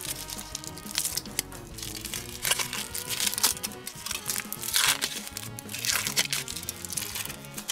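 Crinkling and crackling of chocolate-egg candy-toy packaging being opened by hand, in quick irregular bursts, over background music.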